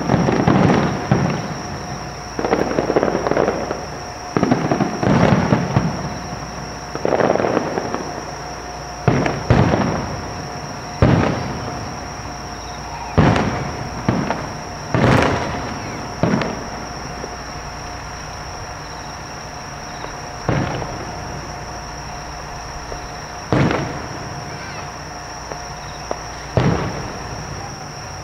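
Aerial fireworks shells bursting: a quick run of booms, each with a rolling echo, for about the first half, then single bangs every three seconds or so.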